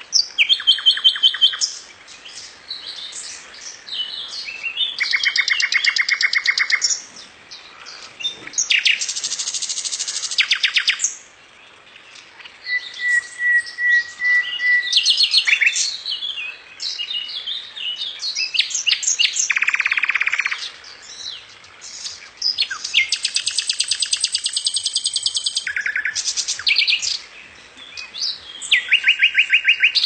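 Birds singing: repeated bouts, each a second or two long, of rapid high trilled chirps at varying pitches, with one short steady whistled note a little before the middle.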